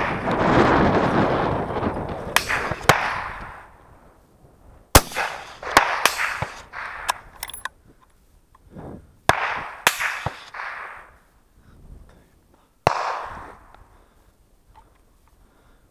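Rifle shots: several sharp cracks a few seconds apart, each trailing off in an echo across open ground, with smaller metallic clicks and handling noise between them. A loud rushing noise fills the first few seconds.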